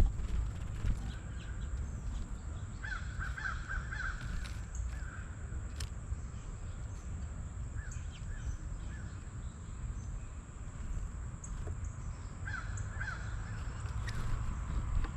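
Wild birds calling at a yard feeder: short calls, a quick run of four or five about three seconds in, a few single ones, and a pair near the end. A steady low rumble and a faint steady high tone lie underneath.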